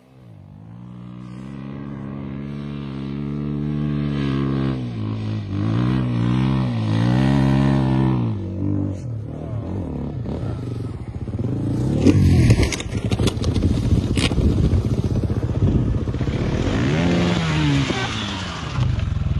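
Off-road dirt bike engines revving up and down as they ride. There is a burst of clattering knocks about two-thirds of the way through, then another rev near the end.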